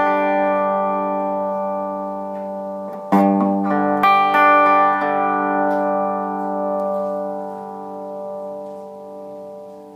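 Clean electric guitar chords from a Gibson ES-335 semi-hollow through a Swart AST tube amp, with no reverb pedal on. Each chord rings out and slowly fades, and new chords are struck about three and four seconds in.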